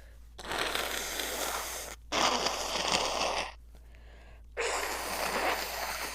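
A woman's long, noisy breaths of air close to the microphone: three rushes of about a second and a half each, the first two back to back and the third after a short pause.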